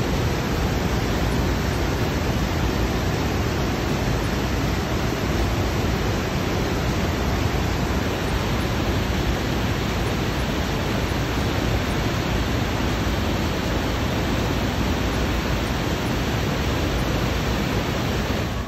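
Waterfall and torrent rushing steadily through a narrow rock gorge: a constant, unbroken wash of falling water.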